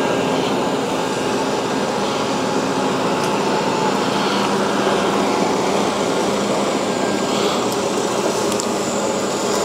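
Shark IQ Self-Empty XL robot vacuum running steadily in normal cleaning mode on carpet, a continuous whir with a steady low hum.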